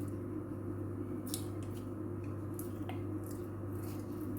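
Light handling of a spoon and bowl while a spoonful of honey is added to onion juice: a few faint, short clicks and taps over a steady low hum.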